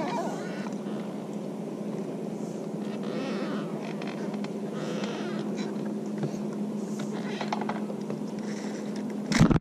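A small electric motor on a bass boat humming steadily on one low pitch, with a brief louder noise just before the end.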